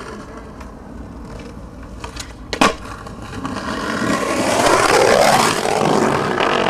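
Skateboard wheels rolling on rough pavement, with a sharp clack of the board about two and a half seconds in. From about four seconds a louder rolling rumble builds, as the wheels run over brick paving.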